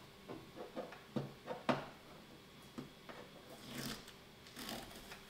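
Packing tape being picked at and pulled off a plastic-wrapped box: scattered crinkling and light ticks, the two sharpest about a second and a half in, and a short rustle near the end.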